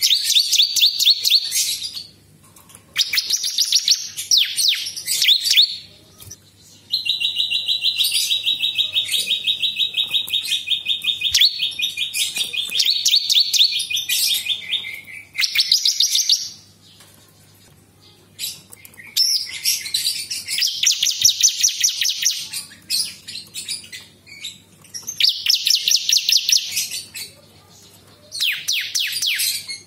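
Caged prinia (prenjak) singing loud, rapid trilled phrases: several bursts of a second or two separated by short pauses, and one long, even trill lasting about eight seconds in the middle.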